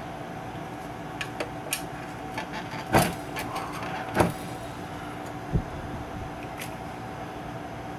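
Hands working at an old tube radio's chassis while a chassis bracket is bent out to reach its worn rubber mounting washers. There are scattered light clicks, then two sharp knocks a little over a second apart about three seconds in, and a dull thud just before six seconds, over a steady low hum.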